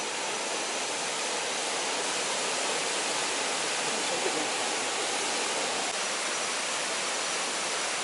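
Steady rush of a small jungle waterfall and the river flowing over rocks.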